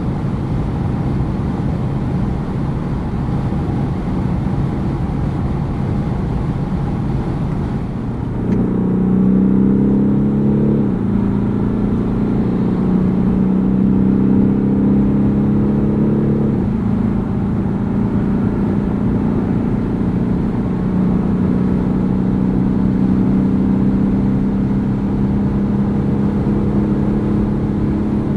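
BMW 420d's four-cylinder turbodiesel at speed over steady road and wind noise. About eight seconds in, the engine note comes in strongly under hard acceleration, stepping abruptly at two gear changes a few seconds apart. It then settles into a steady drone that slowly climbs in pitch.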